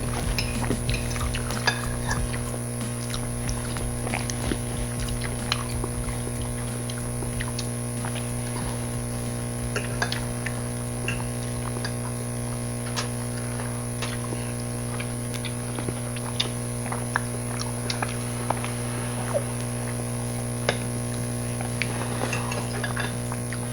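Steady electrical hum under scattered small clicks and ticks of eating: utensils on plates and chewing.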